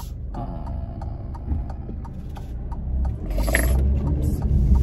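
Car interior noise as the car drives off: a low engine and road rumble that grows louder about three seconds in, with light clicking and a brief hiss a little after the middle.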